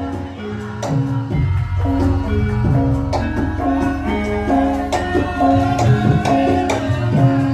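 Javanese gamelan playing a gending for lengger dance: struck metallophone notes moving step by step over sharp drum strokes, with a deep low layer coming in about a second and a half in.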